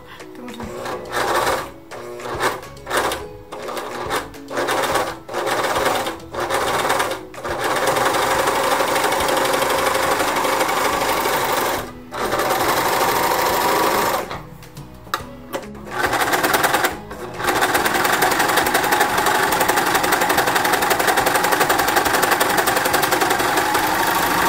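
Singer 14SH754 home overlock (serger) running at speed, stitching and trimming the edge of test fabric with its knife. It starts in short stop-start bursts, then runs in long steady stretches with a brief pause about twelve seconds in and another short stop-start stretch a little later.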